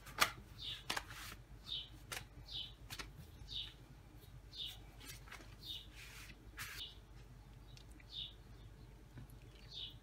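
Thin yufka pastry sheets crackling and rustling as they are handled and spread out, loudest just after the start. A bird chirps in the background, a short high note about once a second.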